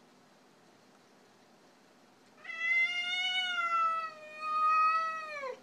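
A cat's single long, drawn-out meow, starting about two and a half seconds in, lasting about three seconds and dropping in pitch at the end.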